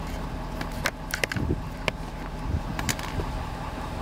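Pickup truck engine idling steadily, with a few sharp clicks and some soft low thumps over it.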